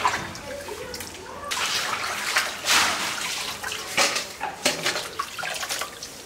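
Water splashing and pouring in uneven surges, starting about a second and a half in.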